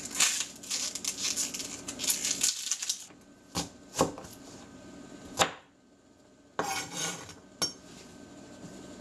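Dry papery onion skin being peeled off by hand with a crackly rustle, then a chef's knife cutting the onion on a plastic cutting board, with several sharp knocks of the blade on the board.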